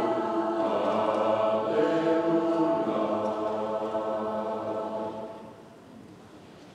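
Church choir singing, with several voices holding sustained notes together; the singing fades away about five seconds in.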